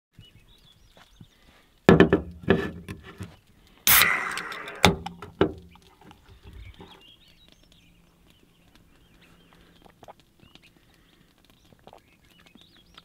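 A few knocks of a can on a truck's ribbed tailgate, then a can of Starbucks Nitro Cold Brew cracked open about four seconds in, with a sharp hiss of escaping gas that fades over about a second.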